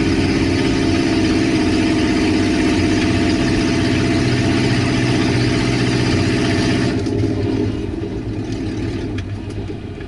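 Car engine with no exhaust system, heard from inside the cabin, running loud and rough under power. About seven seconds in the harsh top end cuts off and it settles to a quieter run, as when the throttle is closed.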